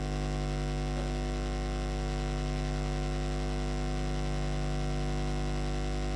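Steady electrical mains hum with a ladder of overtones, even in level throughout, with no voices over it.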